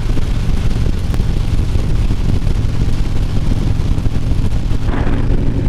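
Harley-Davidson Street Glide V-twin engine running steadily at cruising speed, with a steady rush of wind over a helmet-mounted lavalier microphone.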